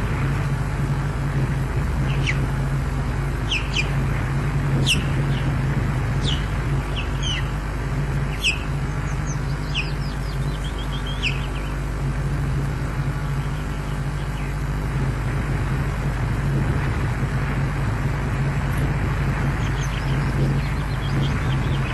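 Short high bird chirps, some single and some in quick little runs, scattered through the first half, over a steady low hum and hiss.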